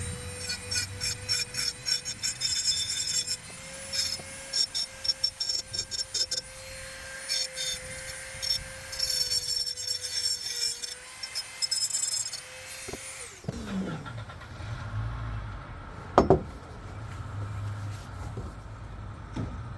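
Dremel rotary tool running at high speed with a carbide burr, grinding intermittently into thin EMT steel conduit to carve out a slot, with a steady high whine under scratchy bursts of cutting. It is switched off about thirteen seconds in and spins down with a falling whine, followed a few seconds later by a single sharp knock.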